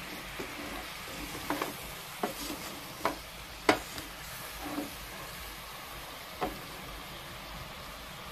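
Wooden spoon stirring vegetables in a stainless steel pot, knocking against the pot several times, the loudest about three and a half seconds in, over a steady sizzling hiss from the hot pot.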